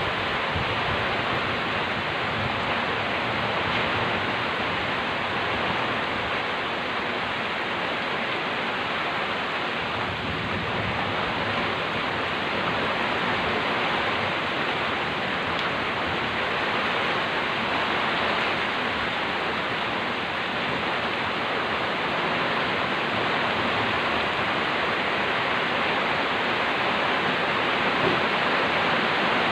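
Heavy rain pouring down as a steady, dense hiss.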